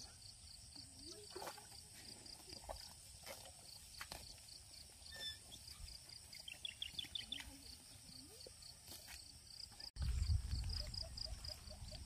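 Wet-field ambience of small animal calls: a high chirp repeating evenly, about four times a second, with short trills of falling notes now and then. From about ten seconds in, after a brief dropout, a louder low rumble and a faster lower pulsing join it.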